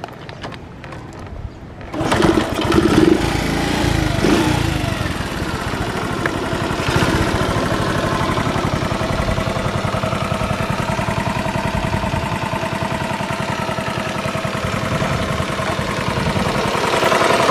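Honda EX3 Cub's 70cc four-stroke single-cylinder engine starting: it catches suddenly about two seconds in, revs unevenly for a couple of seconds, then settles into a steady idle.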